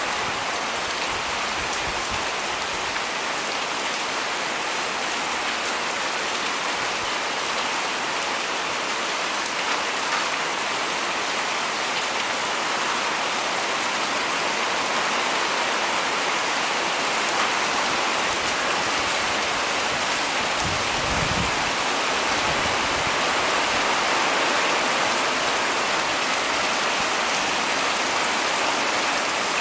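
Steady heavy rain falling, an even unbroken hiss of drops.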